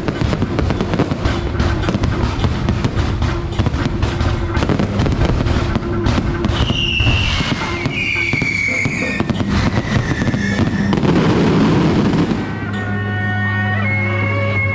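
Fireworks going off in a dense, continuous crackle, with several whistling tones about halfway through, over steady music. About twelve seconds in the crackling stops and music led by a reedy wind instrument carries on.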